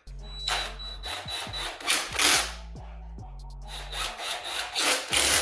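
Cordless drill running through a long socket extension, driving bolts back into a moped's cast-aluminium CVT cover, in three short rasping bursts.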